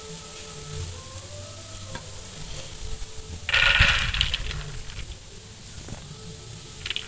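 Dried split chickpeas (chana dal) scooped up by hand and dropped onto a plate: a brief rattling patter of grains, loudest for about a second halfway through.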